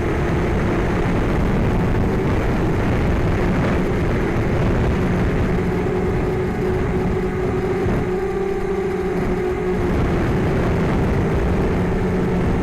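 Mini hexacopter in flight, its six 1804 2400Kv brushless motors spinning 5030 two-blade props: a steady whine that shifts slightly in pitch, over a dense low rumble.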